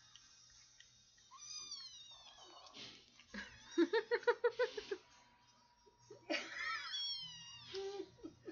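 Kitten meowing: two long calls that fall in pitch, one about a second in and another about six seconds in. Between them comes a burst of rapid laughter, the loudest sound.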